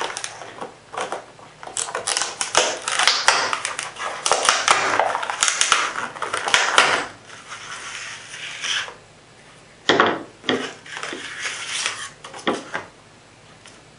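Stiff clear plastic blister pack crinkling and crackling as it is pulled open and separated from its card backing. The crackling eases off after about seven seconds, followed by a few sharp clicks and taps.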